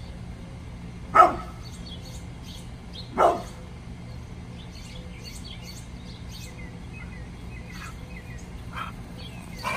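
Brindle pit bull barking twice, about two seconds apart, at something beyond the yard's gate. Small birds chirp faintly in between.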